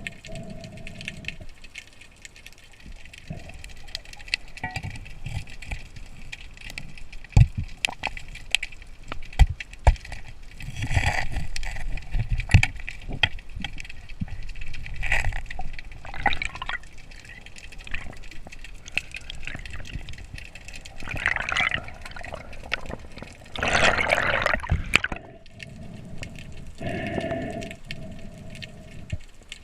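Water sloshing and gurgling around the camera of a spearfisher, with scattered sharp clicks and louder rushing bursts about eleven and twenty-four seconds in.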